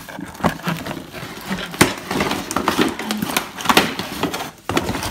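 Cardboard packaging and a hard plastic toy wristband being handled: rustling with many sharp clicks and knocks.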